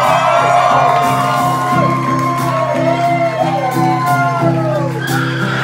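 Live country band playing a steady held chord, with people in the crowd shouting and whooping over it.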